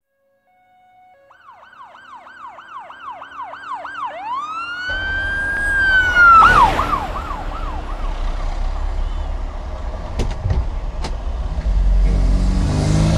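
Emergency-vehicle siren fading in: a fast yelp sweeping up and down about three times a second, then one long wail that rises, holds and falls, then a few more quick sweeps. About five seconds in, a steady low rumble comes in under it, with a sudden noisy burst at the top of the wail and two sharp clicks near the end.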